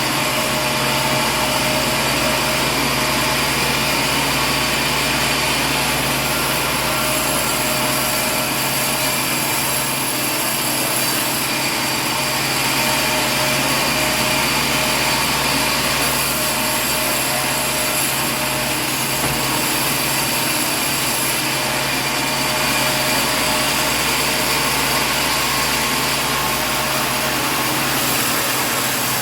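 Steady mechanical noise with several constant hums and a high whine through it, unchanging throughout.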